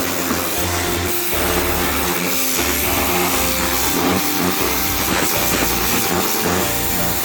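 Ryobi 1600 PSI electric pressure washer running steadily: the motor and pump humming under a constant hiss of the water jet spraying the wooden deck stairs.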